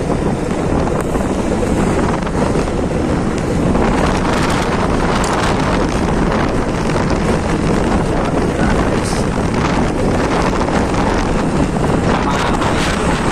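Wind buffeting a phone microphone on a moving motorbike, over the steady running of the bike's engine.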